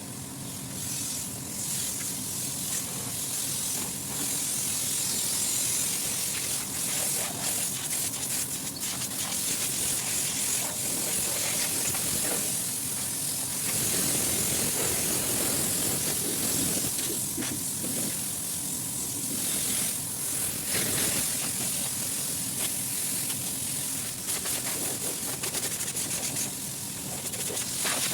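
Steady, loud hiss of gas or water spraying at a refrigeration condensing unit, over a low, steady machine hum.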